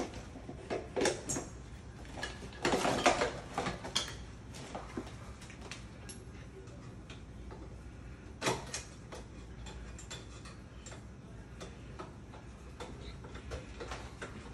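Metal clicks and rattles of mortise lock hardware being worked by hand during a lock replacement. There are bursts of clicks about a second in and around three seconds in, a single sharp knock at about eight and a half seconds, and lighter ticks in between.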